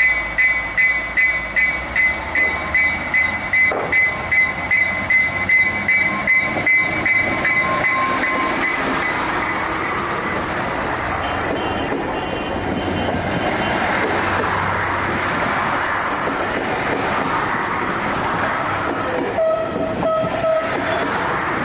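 Danish IC3 Flexliner diesel multiple unit passing close by at speed, a dense rush of wheels and running gear as the cars go past. Over the first eight seconds or so a bell rings steadily, about two and a half strokes a second, and a short steady tone sounds near the end.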